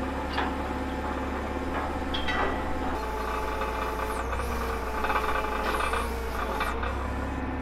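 Steady low engine hum, typical of the forklift idling alongside, with a few light metal knocks and some rough scraping from work on the ride's steel tower.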